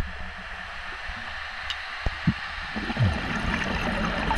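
Underwater sound from a scuba dive: a steady low rumble with a few sharp clicks, then, from about three seconds in, the rising bubbling of a diver's exhaled breath from the regulator.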